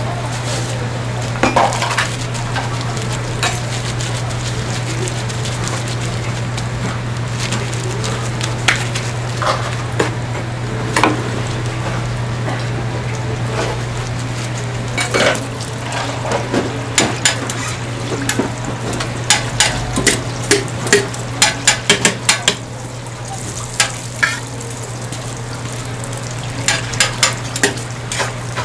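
Hotteok dough sizzling in hot oil on a flat steel griddle, with a steady low hum underneath. Sharp metal clicks and knocks of a steel presser and utensils against the griddle come in clusters, most thickly in the second half.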